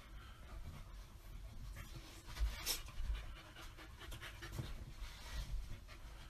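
Chow chow dogs panting while a puppy noses and mouths at an older chow lying on the carpet, with soft low bumps and one sharp hissy burst a little before halfway.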